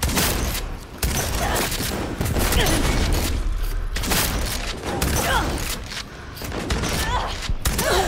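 Video game gunfire: a firefight of rapid, repeated shots and impacts in a dense stream, with a few short pitch glides mixed in.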